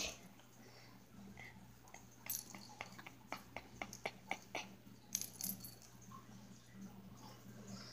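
A kitten scuffling on a hardwood floor while play-fighting a hand: a quick run of light clicks and taps, likely its claws on the wood, about two seconds in, then a few more a little later, over a faint steady low hum.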